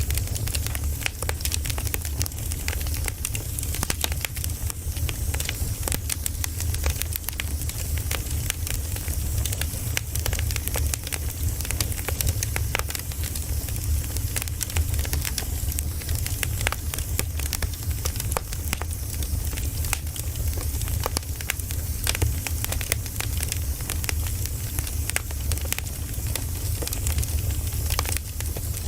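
Campfire burning: wood crackling with many irregular sharp snaps over a steady low rumble of the flames.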